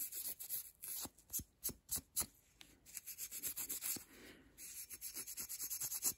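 Green Scotch-Brite pad scrubbing a thin film of rust off gun steel in quick, repeated back-and-forth strokes: carding off the loose rust crystals between coats of rust bluing.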